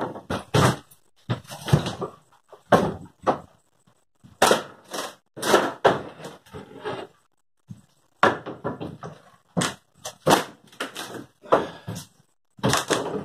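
Wooden boards and shelving in a shed being pulled loose and knocked about: irregular bangs, knocks and clatters of wood on wood.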